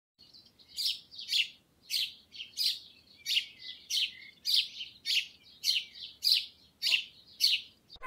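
Northern mockingbird giving a steady series of short, sharp call notes, about two a second.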